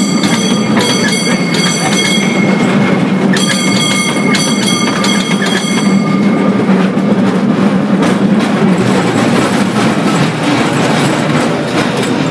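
San Francisco cable car running with a steady rumble and rattle. Its bell clangs in two quick runs of strikes in the first half.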